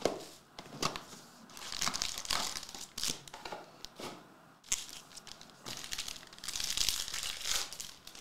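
Foil trading-card pack wrappers crinkling and tearing as they are opened by hand, in irregular bursts, with a cardboard card box handled at the start.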